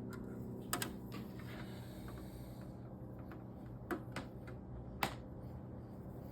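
Quadraflex QL-14 turntable being handled: a quick double click about a second in, two more clicks near four seconds and a louder single click about five seconds in, over a steady low hum.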